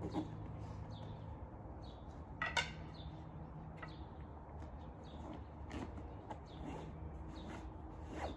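Birds chirping a few times outdoors, the loudest call a quick falling chirp about two and a half seconds in, over a steady low hum, with soft rustling of a canvas carry bag as a folded wooden camping cot is pushed into it.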